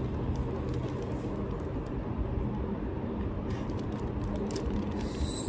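Steady low background rumble, with a few faint plastic clicks from a stiff 5x5 puzzle cube being turned in the hands during the second half.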